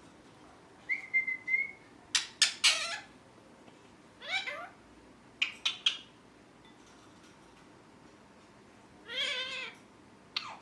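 Pet ringneck parrot calling in separate bursts: a short steady whistle, then clusters of sharp shrieks and a falling squawk, with a longer, fuller call near the end.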